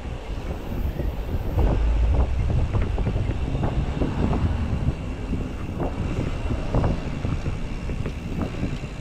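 Riding a bicycle on a city street: wind buffeting the microphone over a steady low road rumble, with scattered short rattles and knocks.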